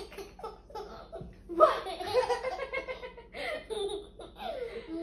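A baby laughing in a string of short bursts, the longest and loudest run starting about one and a half seconds in.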